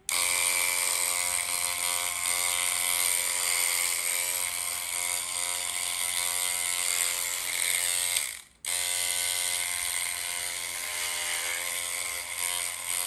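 Handheld electric dreadlocks machine running with a steady buzz as it works natural hair into dreadlocks. It cuts out suddenly about two-thirds of the way through and starts again straight away.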